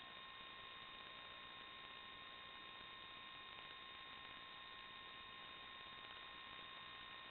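Near silence: a faint, steady electronic hiss and hum with a few thin steady tones and no other events, the empty sound track of an analog FPV video recording.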